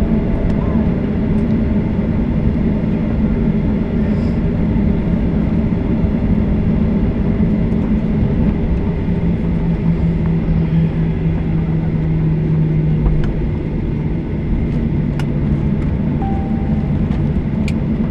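Steady low rumble of a Boeing 737-800's CFM56-7B engines and airflow heard inside the cabin, with a low hum that swells for a few seconds past the middle and then eases.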